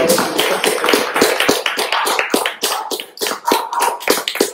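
A small crowd applauding, the separate claps of individual hands heard distinctly, several a second and irregular.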